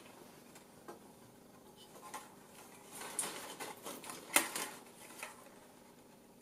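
Handling noise from a metal electronics assembly with flex ribbon cables being turned in the hands: soft rustles and scattered small clicks. The sharpest click comes a little past the middle.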